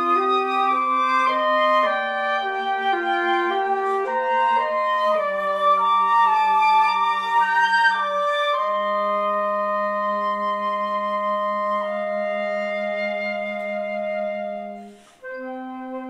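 Three flute parts playing a slow piece in harmony: a melody over sustained lower notes, with a long held chord through the middle. The sound breaks off briefly about a second before the end, then a new chord begins.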